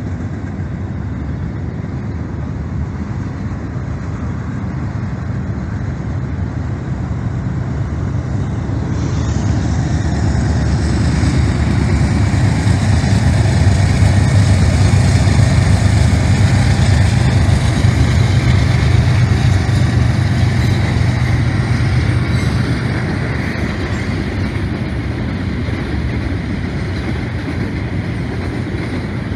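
Freight train passing: diesel locomotives led by a BNSF C44-9W run by with a deep, steady engine drone that swells from about a third of the way in and is loudest through the middle, then eases as the freight cars roll past.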